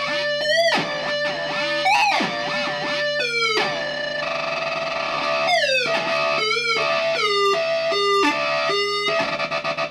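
A mini keyboard's notes run through the Fort Processor experimental noise synth circuit, coming out as distorted tones that swoop up and down in pitch and step between held notes. About a second before the end the sound turns into a fast, even pulsing, several beats a second.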